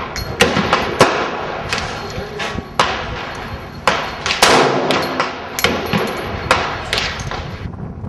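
Gunshots at a shooting range: a loud .50 Beowulf rifle shot through a .50 BMG muzzle brake about four and a half seconds in, with a long echoing tail, among several other sharp shots.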